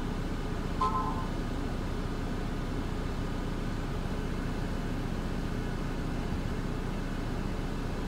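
A short electronic notification beep from the ELD tablet about a second in, over a steady low rumble inside the truck cab.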